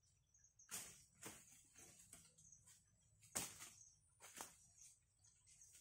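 A string of irregular crunches and rustles, the loudest about three and a half seconds in.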